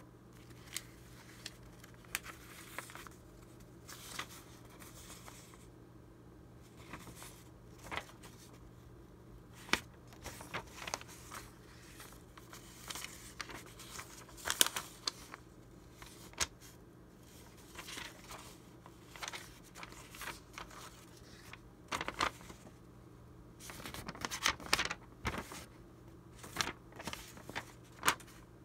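Old vintage paper sheets handled by hand: irregular rustling and sharp crinkling as the brittle notes are picked up, turned over and shuffled against each other, loudest about halfway through and again near the end.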